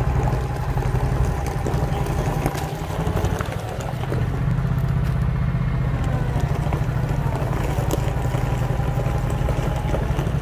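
Engine of an amphibious drive-on-beach rigid inflatable tender running steadily as the boat drives on its wheels across gravel, easing off briefly about three seconds in, then picking up again.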